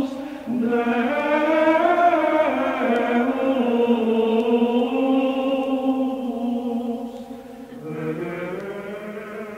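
A group of voices chanting in long held notes that shift slowly in pitch; about eight seconds in the chant drops in level and moves to a new note.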